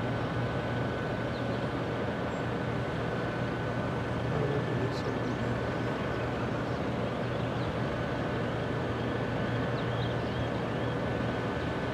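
Steady low drone of a large container ship's engines and machinery as it passes close by, with a constant hum under an even rush of noise. A few faint high chirps come about halfway through and near the end.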